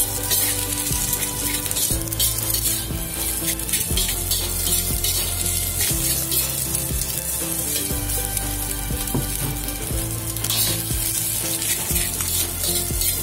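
Fried rice stir-frying in a stainless-steel wok: steady sizzling, with a spatula scraping and tossing the rice against the metal. Background music with low held notes plays underneath.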